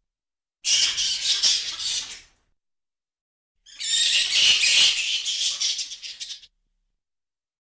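Vampire bat calling: two bursts of high-pitched, rapid squeaky chittering, the first about two seconds long and the second about three, with silence between them.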